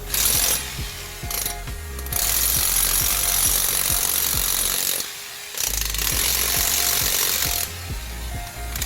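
Electric demolition hammer chipping into concrete, hammering rapidly, pausing for about half a second a little past the middle and then starting up again.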